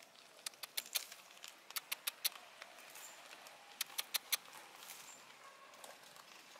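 A small plastic bag of cat treats handled close by, giving scattered sharp crinkles and rattles at an irregular pace.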